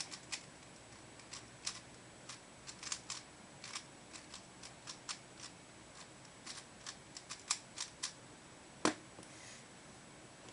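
Standard 3x3 Rubik's Cube being turned one face at a time at an unhurried pace, each turn a sharp plastic click, as when applying a scramble move by move. A single louder knock comes near the end.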